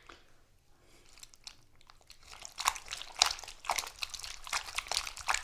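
Bananas being crushed, a wet, irregular crackling and squelching for foley. It starts about two seconds in and keeps going.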